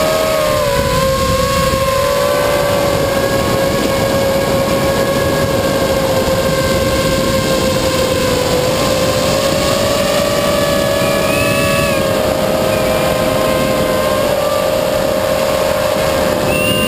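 Battery-electric motors and propellers of a small FPV aircraft heard from its onboard camera: a steady whine that drifts slightly up and down with the throttle, over a rush of air noise.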